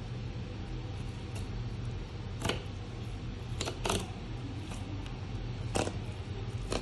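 Steady low hum under about five short, sharp scrapes or knocks, as a knife cuts along the skin of a whole tuna on a plastic cutting board.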